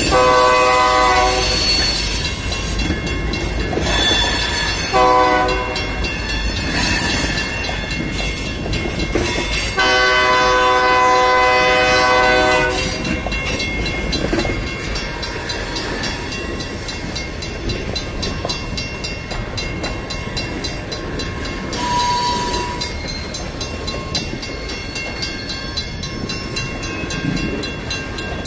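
A BNSF freight train's locomotive horn sounds three blasts, long, short and long, while hopper and tank cars roll past, their wheels clicking over the rail joints. Through it, the crossing's mechanical bell rings with steady, even strokes.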